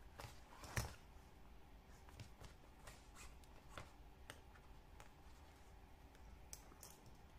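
Hand-stitching a leather wallet: thread pulled through the stitch holes in short scratchy strokes, along with light handling of the leather and needles, with one sharper click about a second in.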